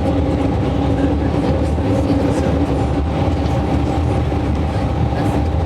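Steady engine and road drone inside a moving tour bus's cabin, a low rumble with a constant hum.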